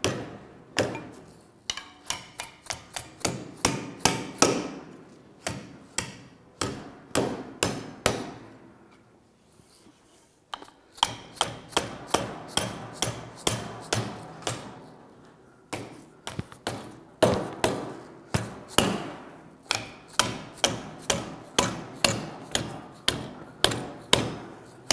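Mallet striking thin aluminium sheet on a steel bench vise, folding the soft-jaw tabs down over the vise jaws. It is a long run of sharp blows, about two to three a second, with a pause of about two seconds near the middle.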